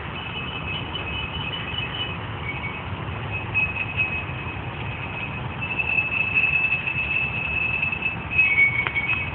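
Empty glass wine bottles on rebar stakes ring with high, sustained chime-like tones as water plays on them. A few pitches overlap and shift, some held for a couple of seconds, over a steady low rush.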